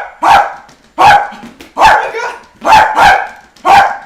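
A dog barking over and over, short loud barks coming roughly every half second, about seven in all.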